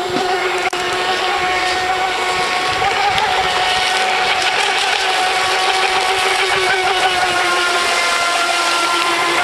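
Radio-controlled racing hydroplane running flat out across the water: a steady, high-pitched motor whine that holds one pitch, over a hiss of spray.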